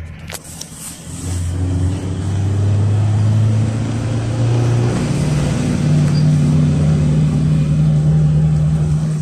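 GAZelle Next minibus's Evotech four-cylinder petrol engine pulling and accelerating, heard from inside the cabin; the engine note grows louder over the first couple of seconds and steps up in pitch about halfway through. A single sharp click comes right at the start.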